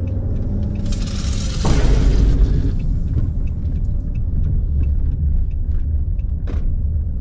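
A shaken plastic bottle of Sprite hissing and spraying as its cap is twisted open: a loud fizz starts about a second in and dies away after about two seconds. Under it runs the car's low engine rumble, heard inside the cabin.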